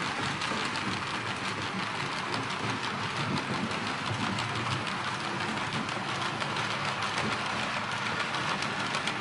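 Märklin H0 model freight train with loaded coal wagons rolling over metal M-track: a steady rumble of wheels with rapid fine clicking.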